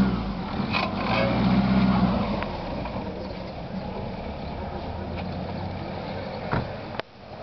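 A car's engine running as the car pulls away off the grass onto the road. It is loudest for a second or so near the start, then settles to a steady hum, with a short knock near the end.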